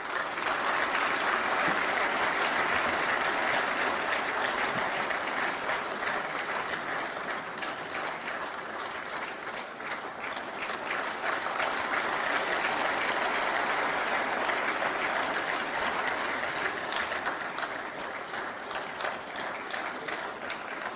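Audience applauding, many hands clapping together in a dense, steady stream that eases slightly near the end.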